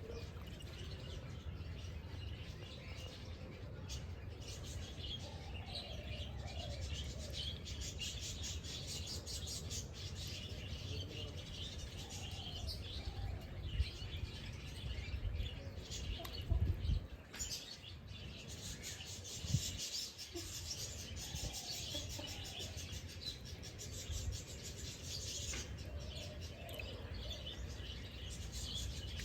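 Several small birds chirping and twittering continuously, with a lower call that falls in pitch and recurs every few seconds. A steady low rumble runs underneath, and a few brief knocks come around the middle.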